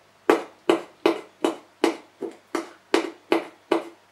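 A thin wooden skewer punching small holes in a paper towel stretched over the mouth of a glass jar with a rubber band: a quick, even series of sharp taps, about two and a half a second.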